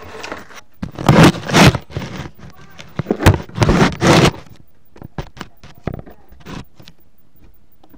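Handling noise from the camera being moved: loud scraping and rubbing against the microphone in two spells, followed by a quick run of sharp clicks and knocks.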